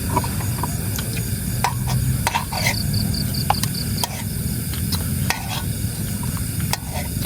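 Spoon clicking and scraping against a bowl of cassava kolak while eating, over a steady low rumble. A short run of quick, high-pitched ticks comes about two and a half seconds in.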